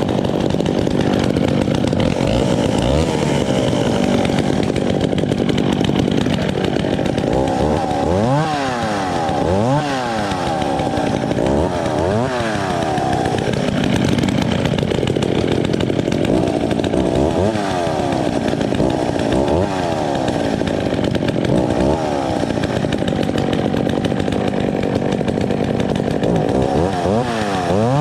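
Vintage two-stroke chainsaw running hard at high revs. Its pitch repeatedly dips and climbs back, several times from about a third of the way in and again near the end.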